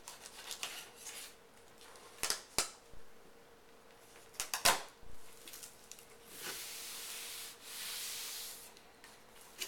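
Cardboard box and foam packing being handled: scattered rustles and a few sharp knocks, then two longer rubbing, sliding sounds of packing being drawn out in the second half.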